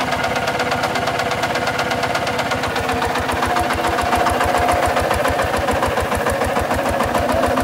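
Kubota RT140 DI walking tractor's single-cylinder diesel engine running with a rapid, even beat while the tractor pulls a plough through dry ground.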